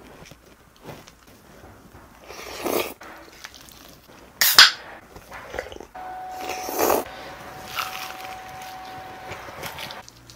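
Close-up eating sounds: breathy sniffs and gasps from the heat of spicy fried chicken, with a sharp, loud burst of breath about halfway through. A slurp of creamy rose-sauce pasta noodles follows a little after.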